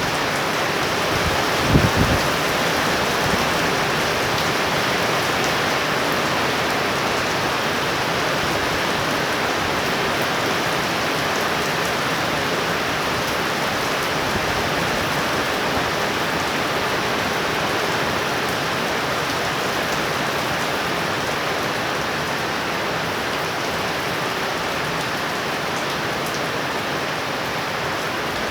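Heavy rain falling steadily in a severe thunderstorm, with a brief low thump about two seconds in.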